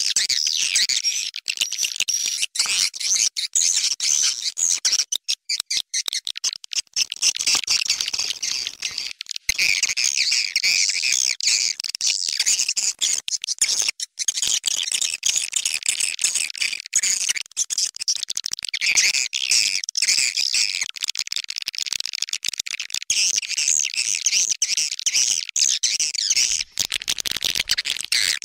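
Swiftlet lure call: a recorded mix of edible-nest swiftlet twittering and chattering, dense, high and continuous, with a few brief breaks about five to seven seconds in. It is the call track played at swiftlet houses to draw passing swiftlets in from their flight paths.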